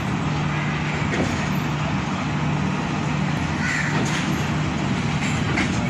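Pakistan Railways passenger train (13up Awam Express) rolling slowly out of the station, heard from an open coach door: steady running noise under a constant low hum. A couple of short high calls sound about four and five and a half seconds in.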